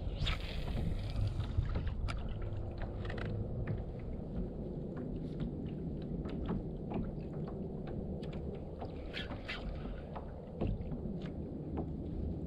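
Water lapping and rumbling against a fishing kayak's hull, with low wind noise. Scattered small clicks and knocks come from the spinning rod and reel being worked. A brief hiss sounds right at the start.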